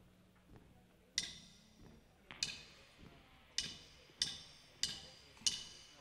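Drummer's count-in with drumsticks clicked together: six sharp wooden clicks, two slow and then four twice as fast, setting the tempo for the song.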